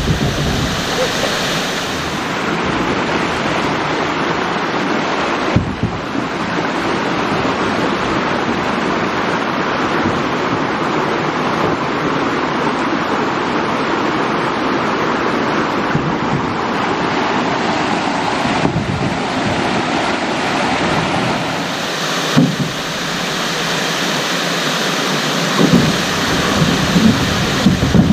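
Waterfall: a steady, loud rush of falling water, with a few low thumps near the end.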